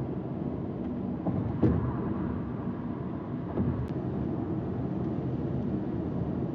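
Steady low rumbling background noise, with two brief knocks about a second and a half in and again two seconds later.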